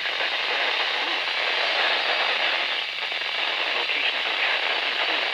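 NOAA Weather Radio receiver putting out steady hiss and crackle of radio static, a band of noise with no clear voice coming through.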